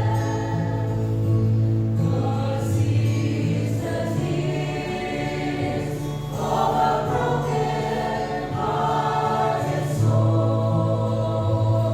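Church choir singing a hymn in harmony over a steady low accompaniment, voices swelling on held notes.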